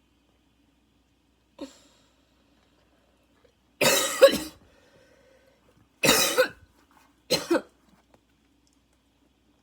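A woman's harsh, barking cough in a coughing fit: a faint catch about a second and a half in, then three loud bouts of two or three coughs each, the first and loudest about four seconds in.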